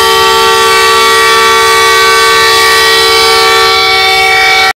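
Train air horn blowing one long, steady chord, cutting off abruptly near the end.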